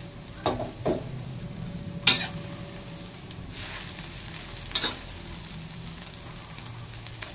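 Egg and garlic-chive omelette frying in an aluminium wok with a steady sizzle. A metal spatula scrapes and knocks against the wok a few times, the sharpest knock about two seconds in.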